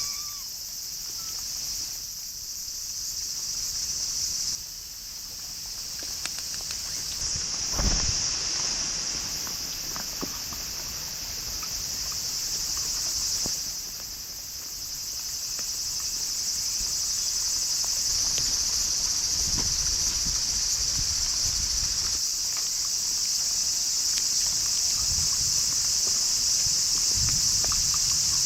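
Steady high-pitched chorus of night insects, crickets, with a low rumble and soft patter coming in at times, strongest about eight seconds in and through the second half.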